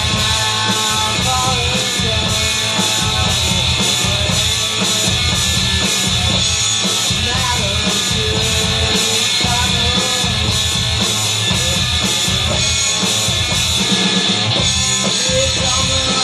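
Live rock jam: an electric guitar and a drum kit playing together, loud and steady.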